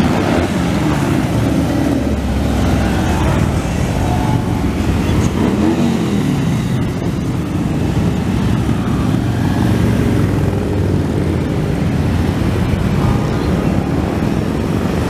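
Harley-Davidson motorcycles and motor trikes passing one after another, their engines running loud and steady. About five seconds in, one engine note rises and falls as a bike revs past.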